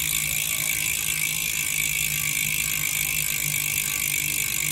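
Campagnolo Bullet rear hub's freehub ticking in a fast, even buzz of pawl clicks as the wheel spins freely. The clicking has a full, round tone.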